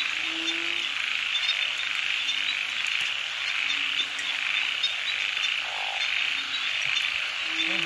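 A dense chorus of frogs calling after rain: a steady high trilling, with short low calls every second or two.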